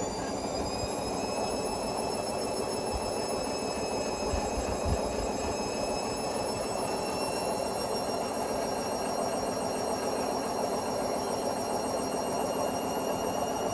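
Hotpoint Smart Tech WMFUG742 washing machine running with bricks in the drum: a steady motor whine that rises slowly in pitch as the drum picks up speed, over the rumble of the drum, with a low knock about five seconds in.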